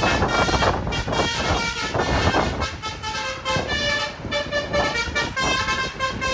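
Vehicle horns sounding over and over, many short held notes at changing pitches, over loud road traffic noise.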